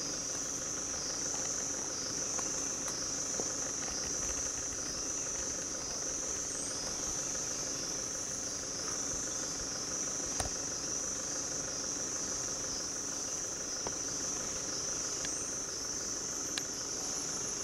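Steady high-pitched chorus of forest insects, wavering slightly in level, with a few faint clicks.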